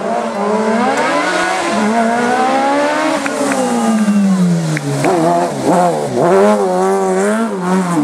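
Competition car's engine at full throttle on a hill-climb course, its pitch climbing hard and then dropping on each lift-off or gear change, with deep dips about three and six seconds in. A few sharp cracks come in the middle.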